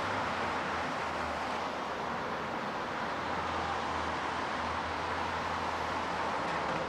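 Skateboard wheels rolling over a concrete sidewalk: a steady rolling noise with a low rumble underneath.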